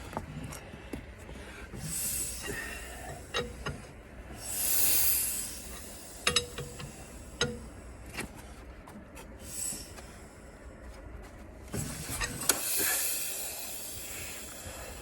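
A start attempt on a Caterpillar Sixty crawler's engine, turned over by hand without firing: sharp metallic clinks and knocks, with two long hissing rushes of air, one around five seconds in and one near the end.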